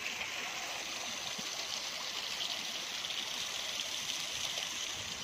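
Steady outdoor rushing, hissing noise, even throughout and brightest in the upper range, with no distinct events.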